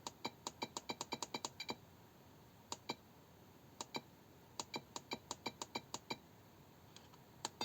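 Faint, sharp clicks from the buttons of a FlySky FS-i6X radio transmitter being pressed to step through its menu. First a quick run of about a dozen clicks, then a few single clicks and pairs, a second quick run, and a few more near the end.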